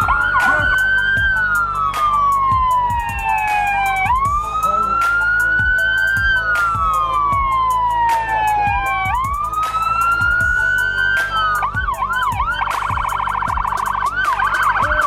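Police car siren in a slow wail, rising and falling roughly every five seconds. Near the end it switches to a fast yelp, then a rapid pulsing tone.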